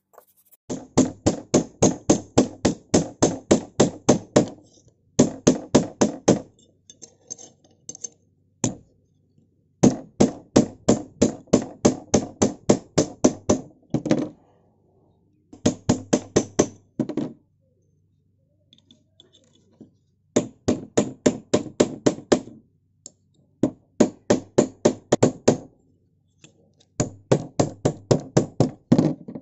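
Hammer blows on a rusty steel masonry trowel laid on a steel block, metal striking metal. Quick, even strikes come about four a second in runs of a few seconds, with short pauses between them.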